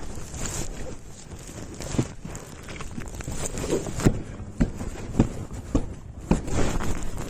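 A string of short, dull knocks and thumps at an uneven pace, sparse at first and then coming about every half second, with rustling between; the sharpest knock is about four seconds in.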